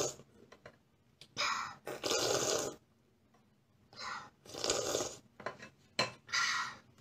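A small child slurping millet porridge from a spoon at the rim of a bowl: about five short, noisy slurps, two close together early on, two more about halfway and one near the end, with faint clicks of a spoon on the ceramic bowl between them.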